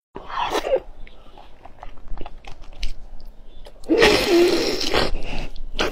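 Close-up eating sounds of a woman biting into and chewing a soft blood sausage: small wet mouth clicks, with a louder, longer wet mouth sound about four seconds in that lasts about a second.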